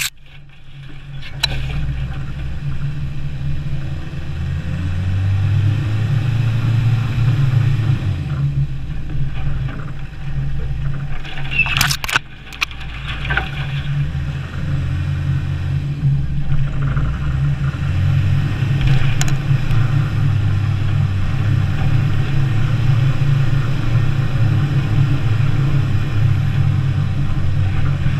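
Land Rover Defender 90 engine running under load as it drives a snowy off-road trail, a steady low drone that gets louder in the second half. A few sharp knocks or scrapes break in, the loudest about twelve seconds in.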